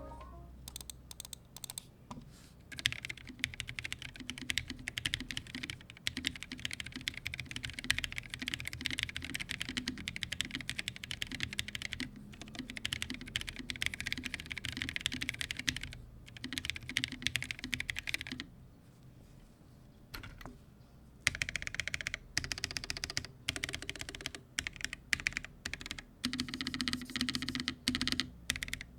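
Fast typing on a NuPhy Nos75 all-aluminum low-profile mechanical keyboard, built foamless with an aluminum plate and top mounted, giving a run of key clicks. The typing stops for a few seconds a bit past the middle, then picks up again.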